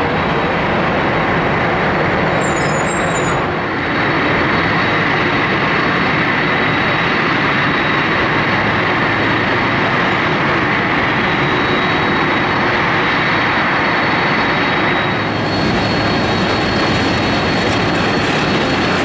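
Boeing 747-400 jumbo jet taxiing on its four turbofan engines: a steady loud jet rumble with a thin high whine. It grows hissier about fifteen seconds in as the aircraft passes by.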